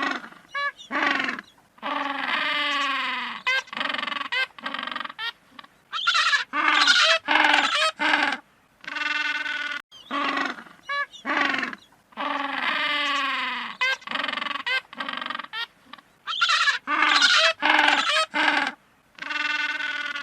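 Penguins calling: a series of loud, hoarse, braying calls, some drawn out over a second or two and others short and clipped, with brief gaps between them.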